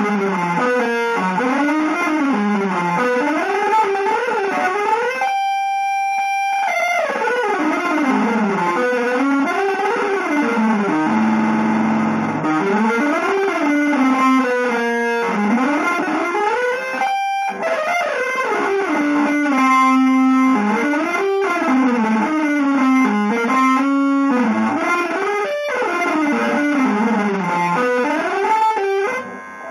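Solo electric guitar improvising in a free-jazz style: fast winding runs that sweep up and down, broken by a few long held notes, a high one about six seconds in and a low one around eleven seconds.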